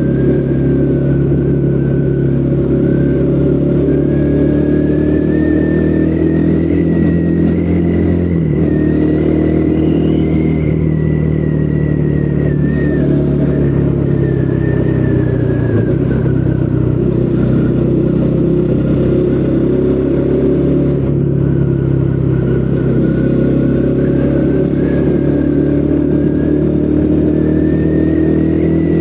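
Triumph Speed 400's single-cylinder engine running through its stock exhaust while the bike is ridden. It holds a steady note, and the engine pitch shifts about eight seconds in and again near the end as the throttle or gear changes.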